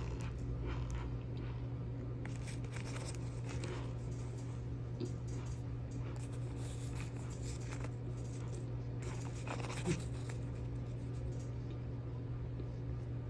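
A plastic scoop digging into and scraping through a mound of fine powder with crumbly lumps, with soft crunching and sifting swishes as the powder shifts and falls. There is one sharp tick about ten seconds in, over a steady low hum.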